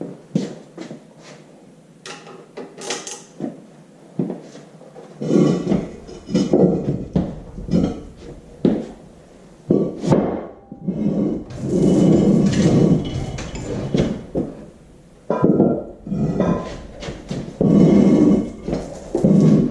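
Workshop handling noise: scattered clicks and knocks, then from about five seconds in, repeated loud irregular clunks and scrapes of heavy parts and blocks being moved.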